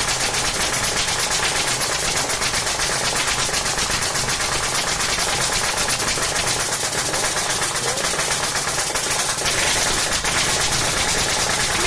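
A machine running steadily with a fast, even clatter that keeps up without a break.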